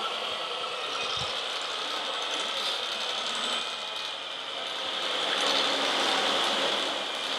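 Electric motors and gearboxes of radio-controlled model construction machines whirring and grinding, growing louder for a moment from about five seconds in.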